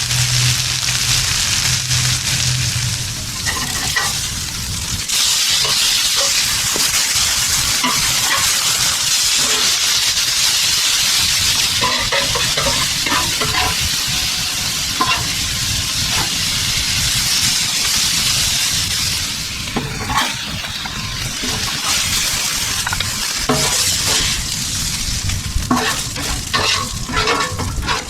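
Breaded cod fillets frying in butter on a hot Blackstone steel griddle, a steady loud sizzle. A metal spatula scrapes and taps on the griddle as the fish is turned.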